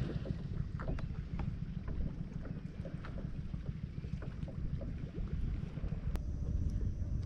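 Wind buffeting the microphone, a steady low rumble, with scattered faint clicks and ticks over it.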